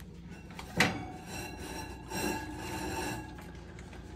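Oven door pulled open with one sharp metallic clunk about a second in. About two seconds in comes roughly a second of metallic scraping with a ringing tone inside the oven.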